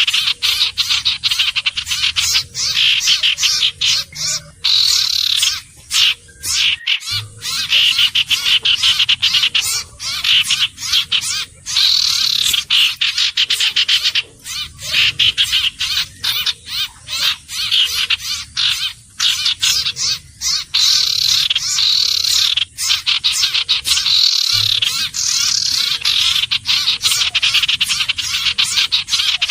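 Common iora calling: a loud, near-continuous fast rattling trill that swells and fades every two to three seconds, with a couple of brief breaks.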